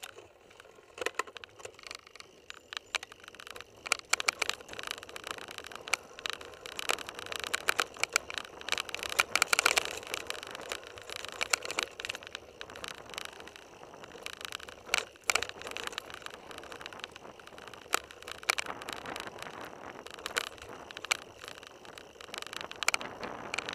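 Mountain bike riding over a dirt trail: tyres rolling on loose ground with dense, irregular rattling, clicks and knocks from the bike jolting over bumps.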